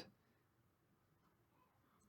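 Near silence: a pause between sentences of speech, with only faint room tone.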